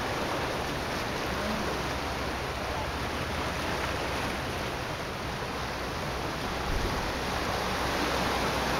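Small waves washing against a rocky shoreline, a steady rushing noise with a low rumble underneath.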